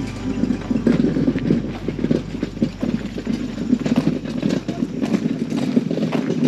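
Footsteps crunching on a gravel driveway as someone walks along it, giving a continuous uneven crackle.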